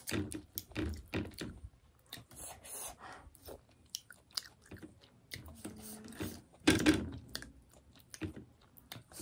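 Chewing and mouth sounds of someone eating fish curry: irregular short wet chews and smacks, with one louder one about two-thirds of the way through.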